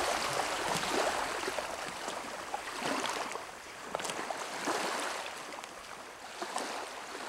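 Small waves lapping and splashing at the water's edge: a steady watery wash with many small splashes, slowly fading toward the end.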